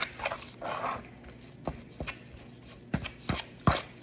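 Shredded chicken and sour cream being stirred together in a bowl: irregular knocks with wet squelching, the thickest squelch just under a second in.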